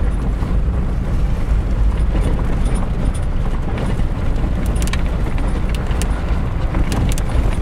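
Toyota 4Runner driving, heard from inside the cabin: a steady low rumble of engine and tyres, with light clicks and rattles in the second half.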